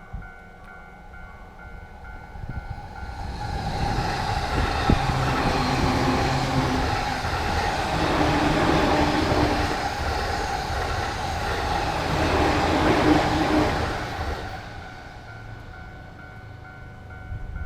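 A train passes through a level crossing. Its rumble builds from about three seconds in, stays loud for about ten seconds and fades away. Over it the crossing's electronic warning bell rings in an even repeating pattern, plain at the start and again as the train fades.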